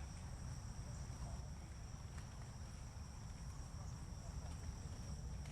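Outdoor ambience: a steady low rumble with a constant high-pitched hum, and faint distant voices.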